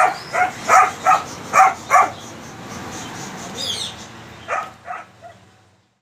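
A small dog yapping: six short, sharp barks in quick succession, then two more near the end.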